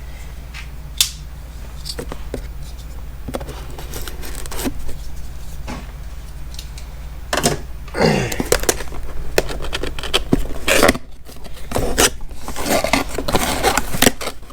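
Cardboard box being opened and its packaging handled: scrapes, tearing and crinkling with scattered clicks and knocks, busier and louder from about eight seconds in.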